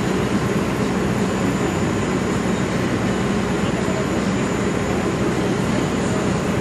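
A steady mechanical drone with a low hum that holds level throughout, with faint voices in the background.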